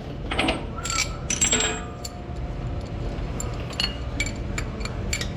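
Small metal parts and tools clinking and clicking as shifter linkage pieces are handled and fitted, with a short metallic ring about a second in. A steady low hum runs underneath.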